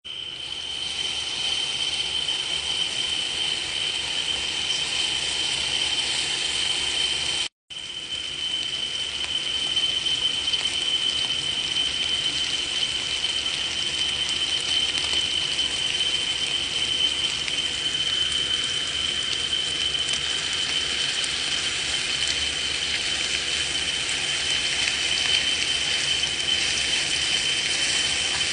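Electric food chopper motor running with a steady high whine, grinding garlic, shallots, candlenuts and chilli into spice paste. It cuts out for a moment about seven and a half seconds in and starts again.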